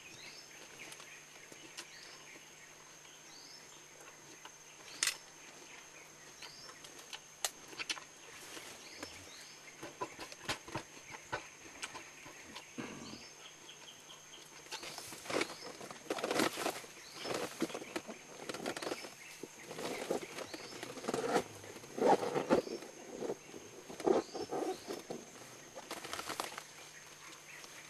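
Silverback eastern lowland gorilla tearing apart and chewing a banana plant's stem for the pith inside. Scattered snaps and crunches come sparse at first, then thicker and louder from about halfway.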